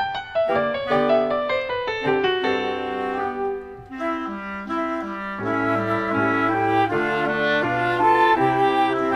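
Instrumental background music, a melody of held notes that step from one pitch to the next.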